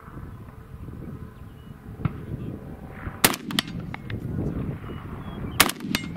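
Two shots from a Century Arms C308, a roller-delayed semi-automatic .308 battle rifle, fired a little over two seconds apart. Each loud crack is followed a moment later by a fainter one.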